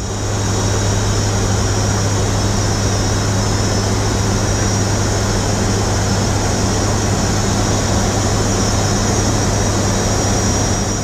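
Steady drone of a WC-130J Hercules's four turboprop engines and propellers heard inside the flight deck, with a strong low hum under the rush of noise and a thin high whine above it.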